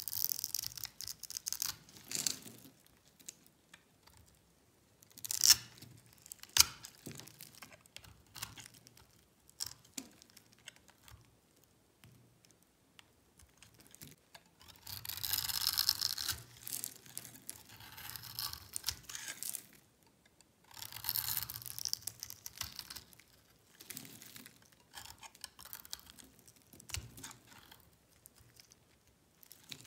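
Small knife scraping across bars of dry, grid-scored soap, crunching as the little cubes break off and scatter. Irregular crackling strokes with two sharp cracks a few seconds in and two longer runs of dense crunching about halfway through.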